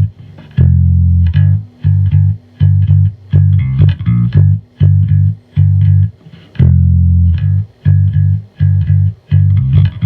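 Background music: a rhythmic, plucked bass-guitar line with guitar.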